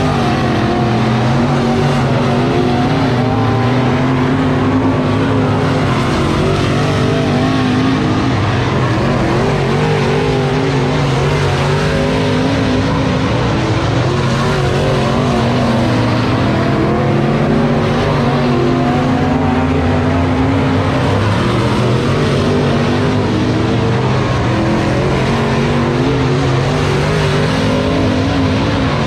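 Dirt-track race cars' V8 engines running at racing speed on the oval, their pitch wavering up and down as they go through the laps.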